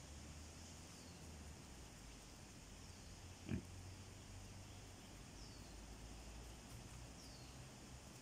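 A wild boar gives a single short, low grunt about three and a half seconds in, over a faint low rumble.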